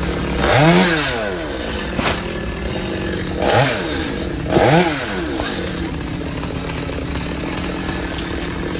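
Chainsaw engine running at a steady low speed, revved up briefly three times, each rev rising and falling in pitch: about a second in, then about three and a half and four and a half seconds in. There is a sharp click about two seconds in.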